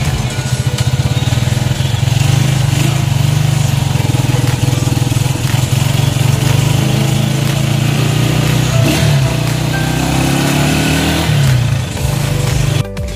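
Engine of a vehicle running steadily while driving along a road, heard from on board, with a brief change in pitch near the end before the sound cuts off suddenly.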